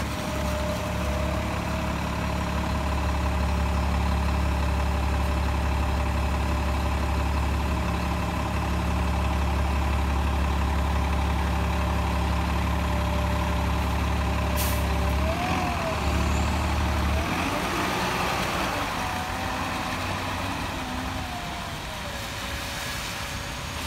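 A city transit bus's diesel engine running with a steady low hum and a steady whine. A short hiss of air comes about 15 s in; then the low hum stops and wavering tones rise and fall as the bus pulls away.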